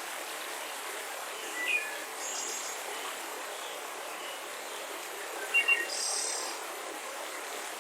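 Mountain river rushing steadily, with birds chirping over it: short high calls about two seconds in and a brighter burst of chirps around six seconds in.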